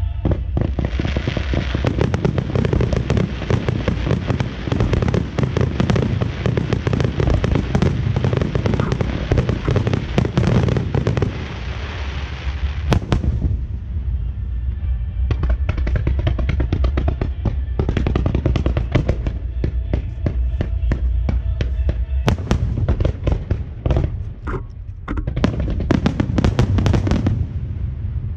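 Fireworks going off: a dense, continuous crackling of many small reports for about twelve seconds that breaks off suddenly, then a sparser run of separate cracks and pops.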